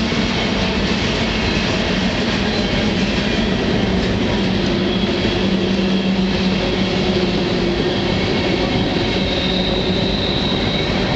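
Freight train rolling at speed, heard from on board an open freight car: a steady, loud rumble and rattle of wheels on rail and car body, with a faint high whine near the end.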